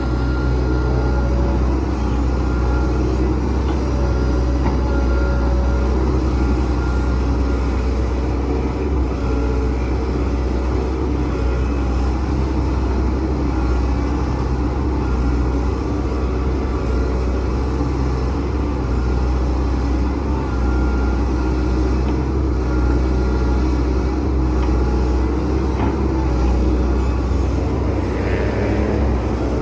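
Hitachi Zaxis hydraulic excavator's diesel engine running steadily at working revs, with a deep, even hum.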